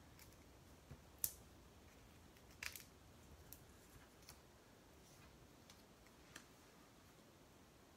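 Near silence broken by a few faint clicks and light taps of paper cut-outs being handled and pressed onto a card, the sharpest about a second in and a small cluster near three seconds.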